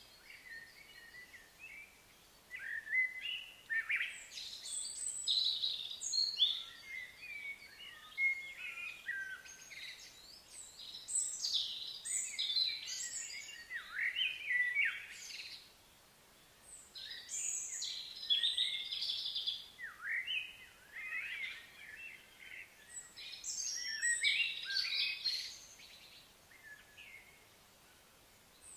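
Birdsong: a songbird singing in bouts of varied, quick chirps and whistles, each a few seconds long, with short pauses between them.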